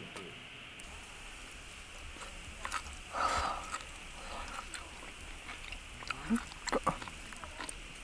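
A person chewing a mouthful of charcoal-grilled yakitori that is too hot, with a short breathy huff about three seconds in and a few sharp mouth clicks near the end.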